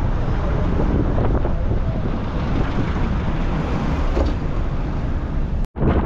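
Wind rushing over the microphone with the steady rumble of a moving vehicle, recorded at its open side window while driving. The sound drops out for a split second near the end, then carries on.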